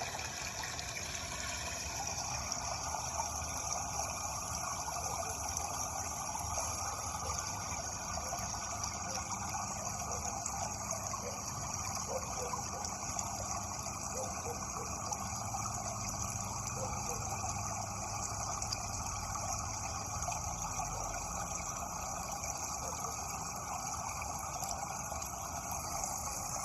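Steady running water, a continuous even rush that holds its level throughout.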